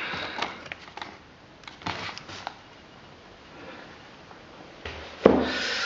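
Handling of fireworks packaging in a cardboard shipping box: scattered light knocks and rustles, then a louder rustling scrape with one sharp bump near the end.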